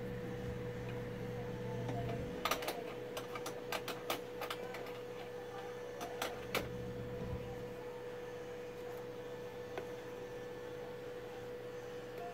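A steady faint hum, with a lower hum under it that stops about two seconds in, then a cluster of about ten sharp clicks and taps over the next four seconds.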